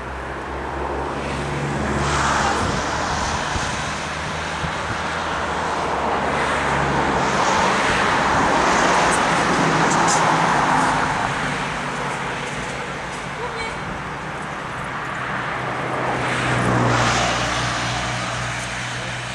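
Road traffic: cars passing on a nearby road, their tyre and engine noise swelling and fading three times, loudest about two seconds in, in the middle and near the end, over a low steady hum.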